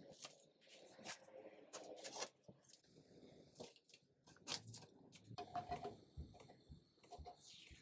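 Masking tape being peeled off a wooden chair frame and crumpled in the hand: faint crinkling and short rips with scattered small clicks.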